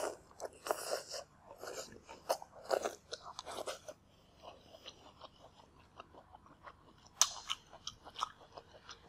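Close-miked chewing of a mouthful of stir-fried green vegetable stems and noodles, with crisp crunching in quick strokes for the first four seconds, then softer, sparser chewing. A single sharp click comes about seven seconds in.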